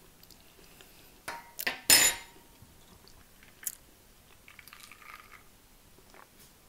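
Cutlery and a glass mug knocking and clinking on the table, loudest in one sharp ringing clink about two seconds in, then faint gulping as a drink is swallowed from the glass mug.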